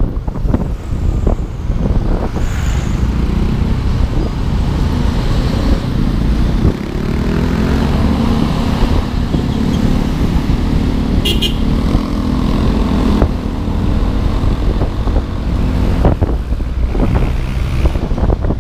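Motorcycle engine running under way with wind buffeting the camera microphone, amid passing road traffic. The engine note comes up clearly through the middle, and a short high beep, like a horn toot, sounds about 11 seconds in.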